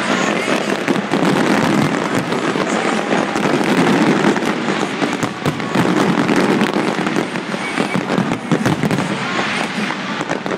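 Large aerial fireworks display in a dense barrage: many shells bursting together, making a continuous stream of overlapping bangs and crackles.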